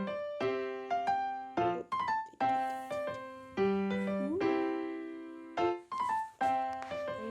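Background music: a gentle piano or electric-piano tune with notes struck about once or twice a second.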